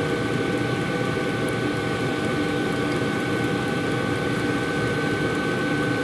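A diesel heater running steadily: an even hum of noise with a constant high-pitched whine over it.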